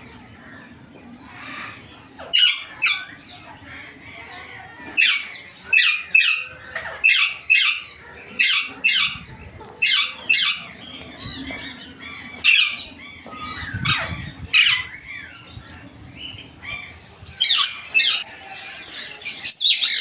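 Alexandrine parakeets calling: loud, harsh, high-pitched calls repeated every second or so, often in quick pairs, with a short lull shortly before the end.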